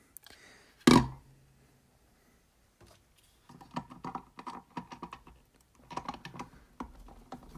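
A single sharp knock about a second in, then a run of small clicks and scrapes as a screwdriver works the screws that hold a circuit-board speaker crossover to its plastic terminal cup.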